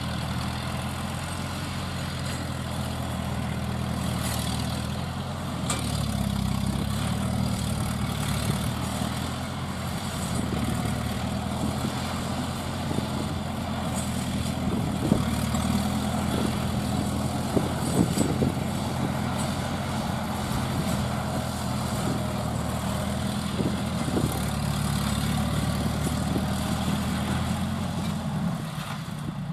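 Engine of a homemade crawler-track rotary tiller running steadily under load while it tills dry soil, its note shifting slightly about six seconds in. A few sharp knocks stand out around the middle.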